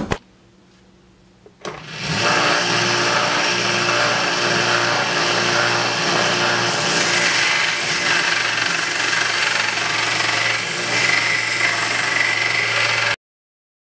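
Narrow benchtop belt sander running with a wooden handle pressed against its belt: a steady motor hum under the rasp of wood being sanded. It starts about two seconds in and cuts off abruptly shortly before the end.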